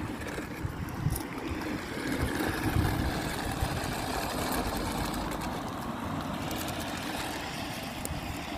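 Toy radio-controlled monster truck running steadily, its small electric motor and gearbox whining as its hard tyres roll over gravel.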